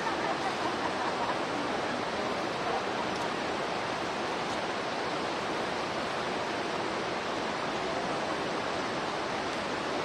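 Steady, even rushing noise that holds at one level throughout, with a few faint higher sounds in the first second or so.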